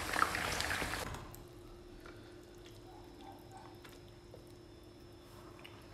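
Pepper sauce sizzling and bubbling around fish in a frying pan, cutting off about a second in. Then a low steady hum with a few faint, soft wet drips as sauce is spooned onto a plate.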